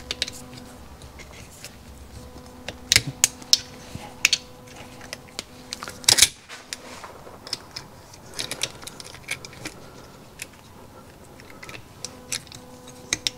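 Scattered small metal clicks and clinks of a hand tool and a small steel spring against the parts of a Yamaha HS1 90 twin's crankcase as the spring is hooked into place. The loudest click comes about six seconds in.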